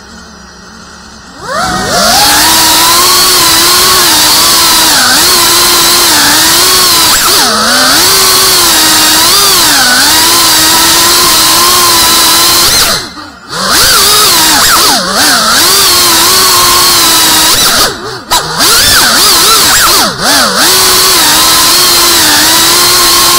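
FPV quadcopter's brushless motors and propellers spinning up about a second and a half in, then a loud whine that wavers in pitch with the throttle. It drops away briefly about thirteen seconds in and again around eighteen and twenty seconds, heard close up through the drone's own onboard camera.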